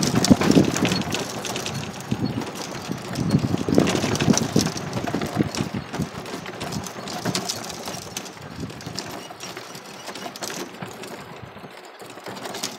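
A small open vehicle rolling over a dirt ramp, with crunching from the tyres and rattling from the body in a dense run of small clicks and knocks, getting quieter over the last several seconds.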